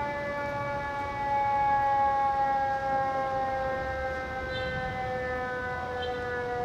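Fire truck's mechanical siren, a Federal Q2B, winding down. Its wail falls slowly and steadily in pitch.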